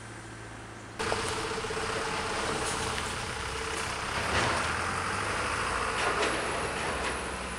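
Street noise with a vehicle engine running, cutting in suddenly about a second in after a quieter steady hum.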